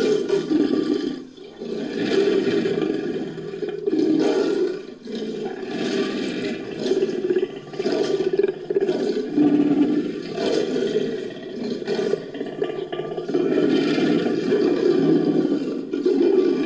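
Layered creature sound effect: deep, rough growls and roars blended from big-cat and crocodilian recordings, rising and falling in long waves with a gurgling edge and brief lulls between swells.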